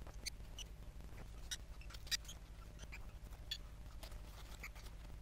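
Faint crinkles and light ticks of paper being handled, as paper petals are shaped and fitted together into a paper flower, over a low steady hum.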